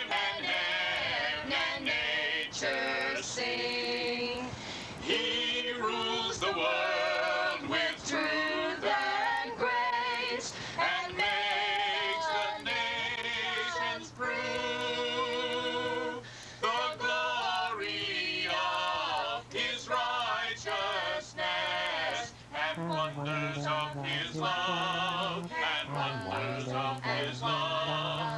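Music: a choir of mixed voices singing, held notes with vibrato, with a lower bass part coming in during the later part.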